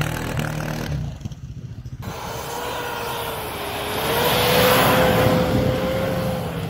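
A side-by-side UTV engine running as it churns through deep snow. About two seconds in, it gives way to a Toyota Land Cruiser 100-series SUV ploughing through deep snow: engine revving under load with a steady whine and a hiss of thrown snow that swells to its loudest about halfway, then eases off.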